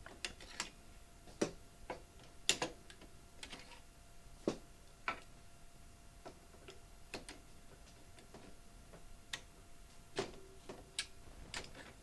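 Scattered sharp clicks and clinks of hard parts being handled and fitted as draw levers go onto a soft serve machine's faceplate, about a dozen at uneven intervals, the loudest about two and a half seconds in.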